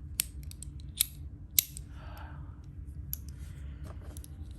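Fidget slider worked back and forth by hand: a few sharp, irregularly spaced clicks as it snaps along its track, with a short sliding scrape about two seconds in.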